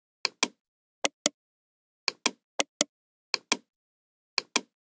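A computer mouse button clicked six times, each click a sharp pair of ticks as the button is pressed and released, with dead silence in between.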